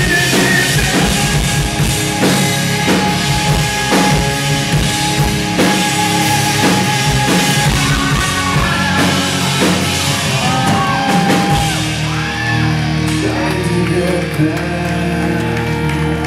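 Live rock band playing: a male lead voice singing over a drum kit and sustained instruments. The regular drum hits thin out about two-thirds of the way through, leaving held chords under the voice.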